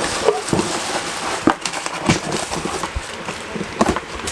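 Irregular knocks and clicks of hard objects being handled and set down, over a steady background hiss; no motor is running.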